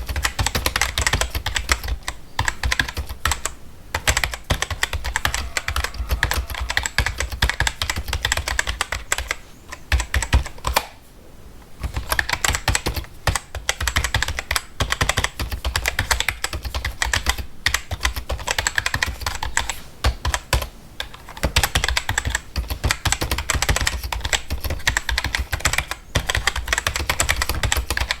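Fast typing on a computer keyboard: a dense, rapid stream of keystroke clicks, breaking off briefly about four seconds in and again for about a second and a half near the middle.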